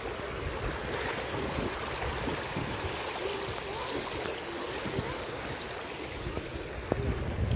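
Shallow water running over travertine terraces: a steady rushing, with wind buffeting the microphone.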